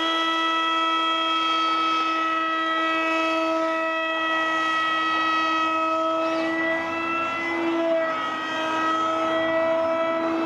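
Electric motor and propeller of a foam RC park jet in flight, a steady high whine at near-constant throttle, its pitch wavering slightly partway through.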